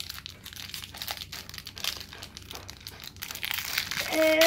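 Crinkly toy-packaging wrapper crumpling and tearing as small fingers pick it open, a dense irregular crackle.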